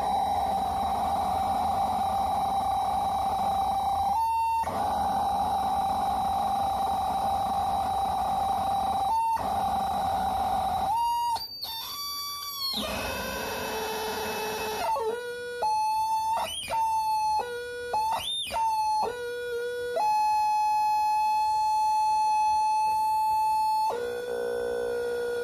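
No-input mixing on a Behringer MX602 mixer: its own outputs fed back into its inputs make a steady electronic feedback tone over a noisy hiss, broken by two short dropouts. From about halfway the tone jumps between pitches and sweeps up and down as the controls are turned, holds one steady pitch for a few seconds, then drops to a lower tone near the end.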